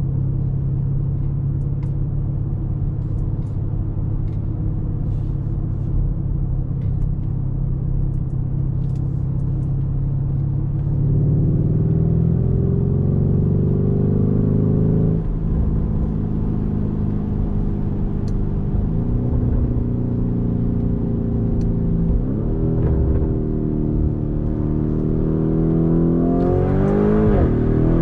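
2019 Lamborghini Urus's twin-turbo V8, heard from inside the cabin: a steady low drone at cruise, then rising in pitch under acceleration, with a sudden drop at each upshift. Several gears are pulled in turn, and the hardest, steepest climb comes near the end.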